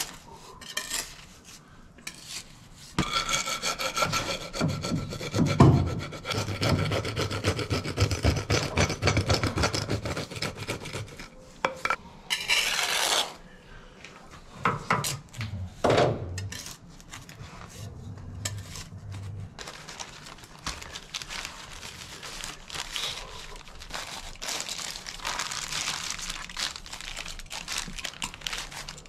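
Wet mortar mix for a shower-pan base being scraped and smoothed with a trowel and a wooden board, in repeated scraping strokes, loudest in the first half. Later, softer rustling of plastic sheeting.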